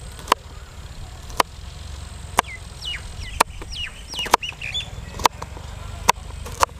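Knife blade cutting through okra pods and knocking on a plastic cutting board: sharp taps about once a second. In the middle, a bird calls with a quick string of short falling chirps.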